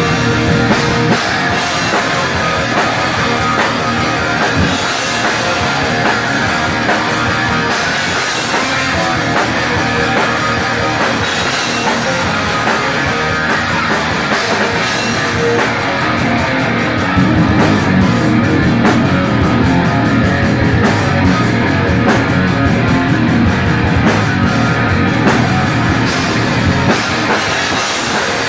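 Live heavy rock band playing an instrumental passage: distorted electric guitars over a drum kit, with no singing. The band gets fuller and a little louder about two-thirds of the way through.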